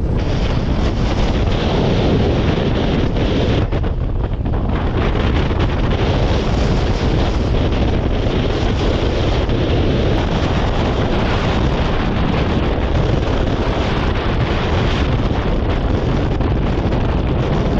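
Strong wind buffeting the microphone, a loud, steady rumbling noise.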